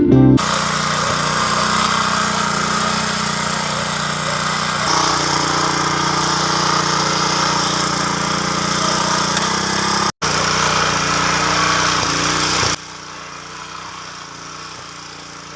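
Motorised rotary tiller's small engine running steadily at working speed while it churns soil. The sound cuts out for an instant partway through and then drops to a much quieter level for the last few seconds.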